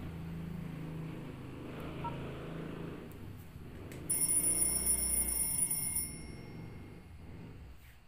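Nokia 3806 phone previewing its built-in clock alert tones. The soft, low end of one tone fills the first few seconds. Then, about four seconds in, the next alert starts abruptly as a louder, high, steady electronic tone, lasts about two seconds and fades away.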